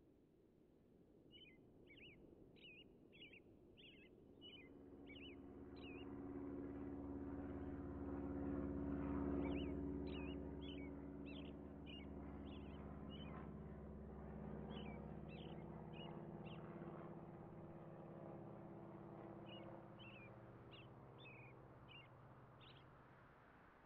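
Birds chirping in several runs of quick, short chirps, over a faint low steady hum that swells up a few seconds in and fades away near the end.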